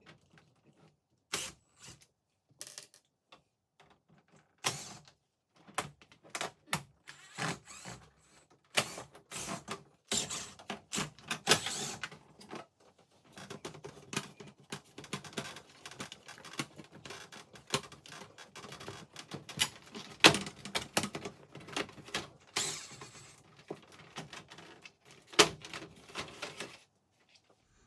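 Front panel of a wall-mounted heat pump indoor unit being taken apart by hand: irregular clicks, knocks and rattles, sparse at first and busier later, stopping about a second before the end.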